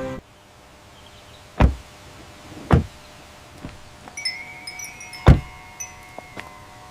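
Three sharp, heavy thuds at uneven intervals, with lighter clicks and faint short high tinkling notes between them.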